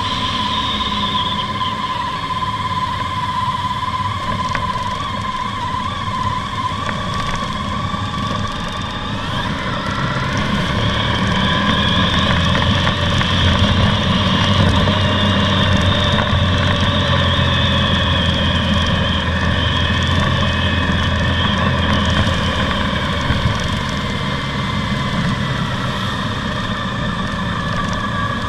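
Honda ST1300's V4 engine running as the motorcycle rides along a road. The engine note rises about nine seconds in, stays up, then eases off again after about twenty seconds.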